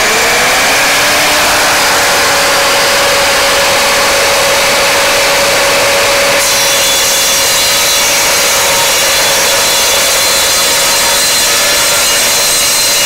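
Evolution R255SMS 10-inch sliding miter saw, with a 15-amp motor and a 24-tooth carbide-tipped multi-material blade, cutting through a 1/8-inch steel bar. The motor winds up to full speed about a second in and then runs steadily under the cut. About halfway through, the cutting noise takes on a higher, brighter edge.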